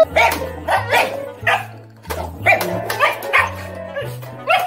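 A boxer barking over and over in short, sharp barks, about two a second, over low held musical notes that change every half second or so.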